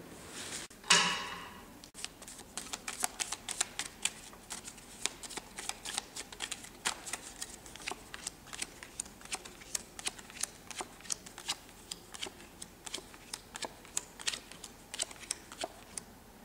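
A brief loud rustle of a spread deck of cards about a second in, then letter cards dealt one at a time onto a bare wooden table: an irregular run of sharp card snaps and taps, about three or four a second, stopping just before the end.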